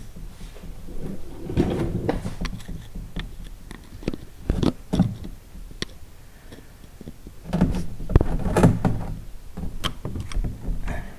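A screwdriver and hand tools knocking and scraping against the plastic oil filter housing under a car, in several short bursts of clunks and clicks.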